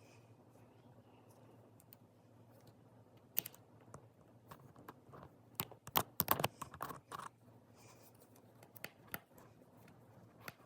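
Small sharp clicks and light scrapes from handling and fitting the tiny case-back screws of a Casio W-26 watch, scattered irregularly, with a quick cluster of clicks about six to seven seconds in.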